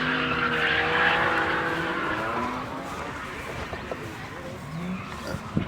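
A car drifting: engine revving with wavering pitch over tyre squeal, fading away over the first few seconds. A short sharp knock near the end.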